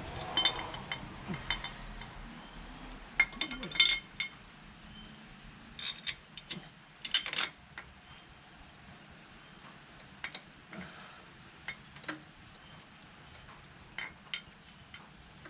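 Small metal parts clinking and tapping against each other in scattered clusters of sharp ringing clicks, as bolts, spacers and a metal chain guard are handled and fitted, then sparser single ticks.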